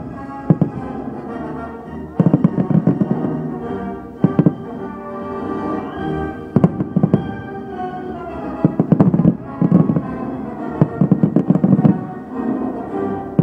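Aerial fireworks bursting in several volleys of rapid bangs and crackles, over steady music.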